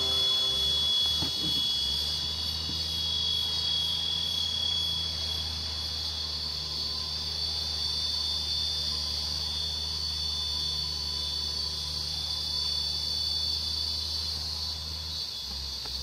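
Steady, high-pitched chorus of forest insects, with a low, steady rumble underneath.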